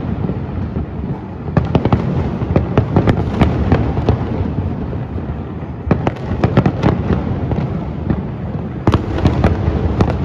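Large aerial fireworks display: many shells bursting together in a continuous low din, with clusters of sharper cracks about a second and a half in, around six seconds, and again near nine seconds.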